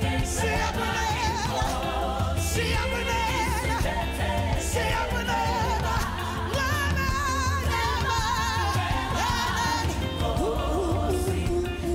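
South African gospel song performed live by a band: singers holding sustained lines with vibrato over steady bass, keys and a drum kit.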